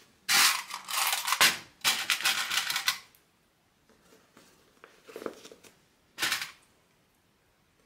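Stiff black waterproof canvas crinkling and rustling as it is handled, with two long bursts in the first three seconds and shorter ones about five and six seconds in.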